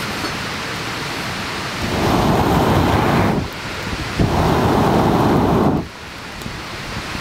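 Two long blows through a fire-blowing pipe into a wood campfire, each a rush of air lasting about a second and a half: one about two seconds in, the other just after four seconds. The fire crackles softly before and after.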